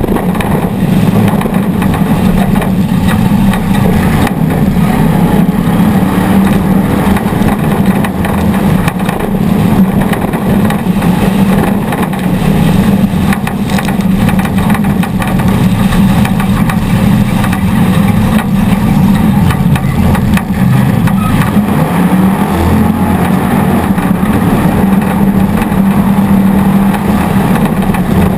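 Off-road race truck engine running loud and steady, with no clear rise or fall in pitch.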